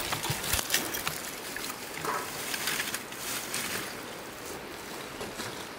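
Lump charcoal poured from a woven plastic sack into a metal mangal grill: a run of rapid clinks and rattles as the pieces tumble onto the metal and each other, dying down a little past halfway.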